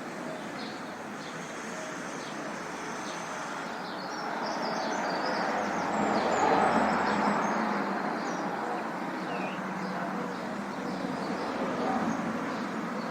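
Urban park ambience: steady traffic noise with birds chirping over it. A vehicle passes, growing louder from about four seconds in, loudest about halfway through, then fading.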